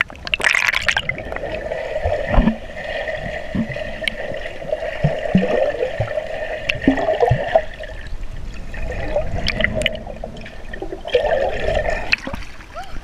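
Pool water heard through a camera held underwater: a steady, muffled rushing and gurgling with scattered low thumps from the swimmer's movement, growing louder as the camera breaks the surface near the end.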